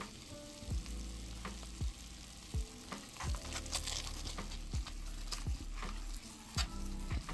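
Bentonite clay mask mixed with apple cider vinegar, fizzing and crackling as the vinegar reacts with the clay, a sizzle. A plastic knife stirs it in a foam bowl, its strokes coming about once a second.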